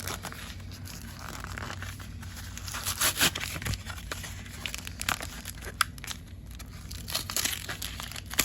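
Foil wrapper of a Pokémon card booster pack crinkling and tearing as it is opened, in irregular sharp crackles.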